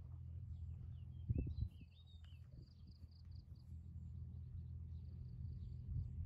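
Cattle-shed ambience: a steady low hum under a pulsing high insect trill, with a few short bird chirps about two seconds in and a single dull knock shortly before them.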